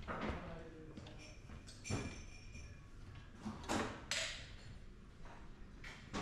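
A handful of short knocks and clatters, the loudest about two thirds of the way in, over low steady room noise.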